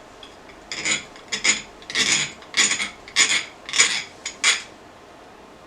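Hand file rasping across a steel pipe fitting in seven even strokes, about one every 0.6 s. The file is skating over the surface rather than biting, because the fitting is hardened steel.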